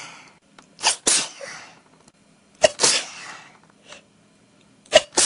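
A person sneezing repeatedly in a sneezing fit: three loud sneezes about two seconds apart, each a sharp catch followed by the noisy burst of the sneeze.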